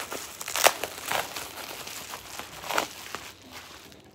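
Clear plastic wrapping crinkling irregularly as hands handle and unwrap it, with a few louder crackles.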